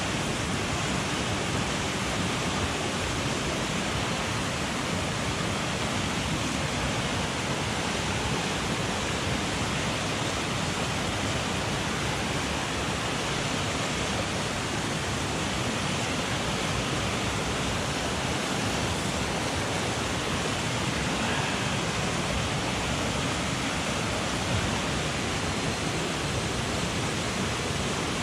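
Mountain headwater stream rushing steadily, an even unbroken noise.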